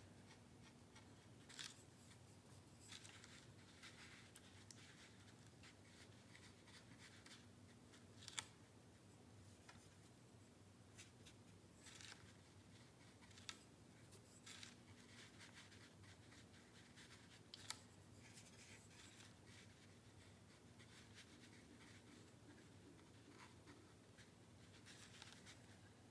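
Near silence: a watercolour brush faintly scratching and brushing on paper, with a few short, light clicks spread through.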